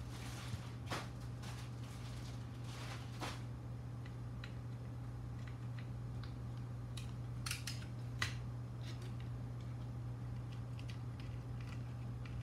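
Scattered small clicks and rustles of a drone's circuit board and wiring being handled and fitted into the frame by hand, over a steady low hum.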